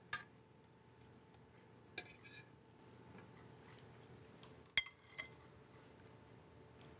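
A few light clinks of a metal fork against a stainless-steel skillet and plates as cooked sole fillets are lifted off the bone, the sharpest about two-thirds of the way through.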